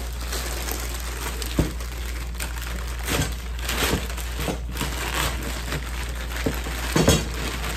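Crumpled packing paper and plastic wrapping crinkling and rustling as they are pulled about and lifted out of a cardboard box, in irregular handfuls, loudest near the end.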